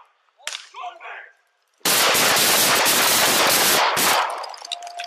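Police gunfire: a burst of many rapid gunshots from several officers' guns, running together for about two seconds, then dying away, after a brief shout.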